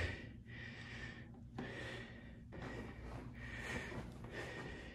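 Faint breathing of the person holding the camera, close to the microphone: a few soft breaths about a second apart.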